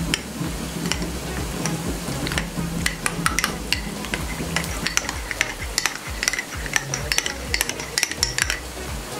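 A spoon stirring cornflour into a glass of milk, clinking quickly and irregularly against the side of the glass.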